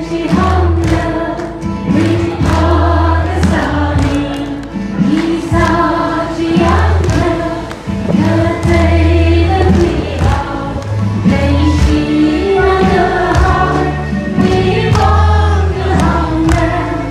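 A crowd singing a gospel song together in chorus, hands clapping along, over a band's bass line and steady beat.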